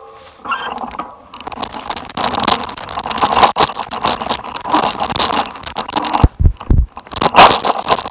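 Irregular crunching and scraping on a rough, stony dirt track, with a few sharp low thumps near the end.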